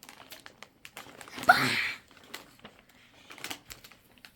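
Plastic snack packaging crinkling and rustling as it is handled, with one short, loud, high-pitched squeal about a second and a half in.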